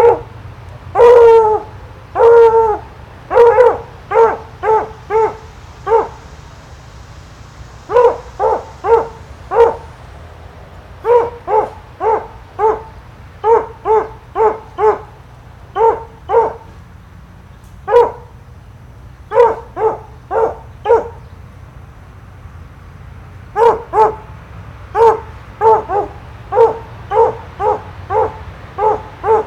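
Dog barking loudly and repeatedly. A few longer barks come first, then runs of short quick barks, about three a second, broken by pauses of a second or two.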